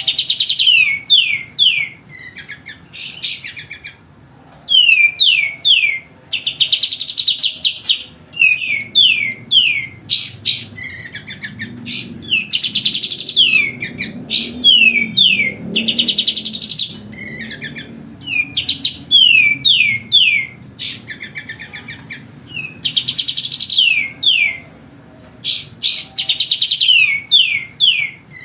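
Kapas tembak, a bulbul, singing nonstop in loud bursts of quick, sharply falling whistled notes, broken by short pauses and fast trilled phrases.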